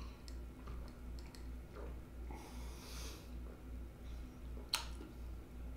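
A person drinking soda from a glass: quiet sips and swallows with soft breaths. There is a sharp click about three-quarters of the way through, and a low pulsing hum underneath.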